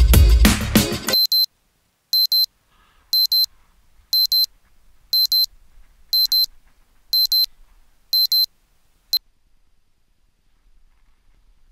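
Electronic music cuts off about a second in. A phone alarm then beeps high in quick pairs, about one pair a second, for eight pairs, and stops after one last short blip.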